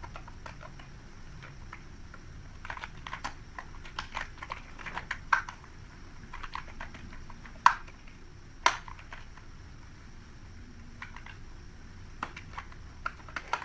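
Typing on a computer keyboard: irregular runs of key clicks with short pauses, a couple of single louder keystrokes about halfway through.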